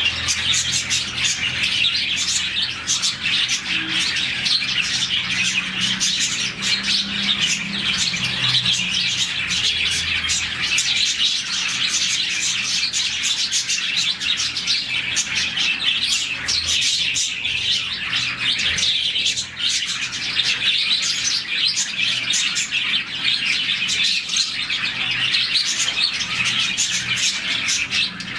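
A colony of budgerigars and lovebirds chirping together in a dense, continuous chatter of many overlapping high calls.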